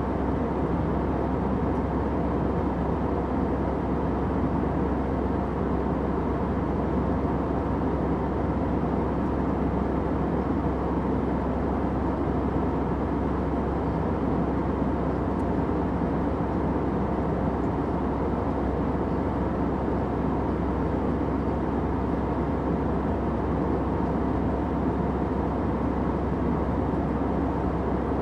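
Steady airplane noise: an even, dull rumble of engines and rushing air, mostly low and middle pitched, with no changes.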